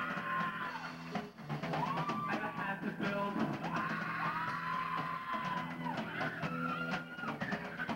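Rock music playing, with a drum kit keeping a steady beat under guitar and a sung melody.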